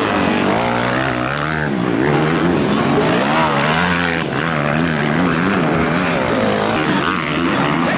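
Several motocross dirt bike engines revving, their pitch repeatedly rising and falling as the riders work the throttle over the track's jumps and turns.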